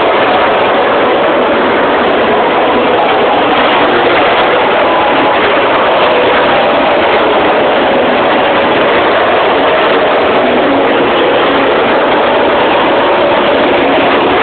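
Loud, steady drone of engines, even throughout with no breaks or single events.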